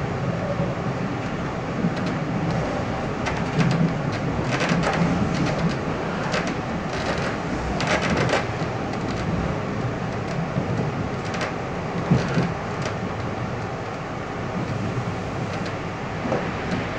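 Passenger coach rolling along the track, heard from inside: a steady rumble with irregular clacks and knocks as the wheels pass over rail joints.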